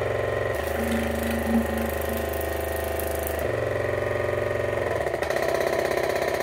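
Waterpik Aquarius Professional water flosser running in floss mode: its pump motor buzzes steadily with a rapid, jackhammer-like pulsing. The tone shifts about half a second in, again near three and a half seconds, and once more near five seconds.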